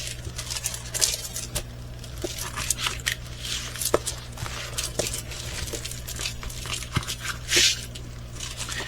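A rolled diamond painting canvas being handled and rolled back, with rustling and crinkling and scattered small clicks and taps.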